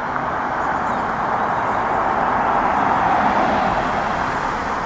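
A road vehicle going by, its tyre and engine noise swelling to a peak about three seconds in and then fading.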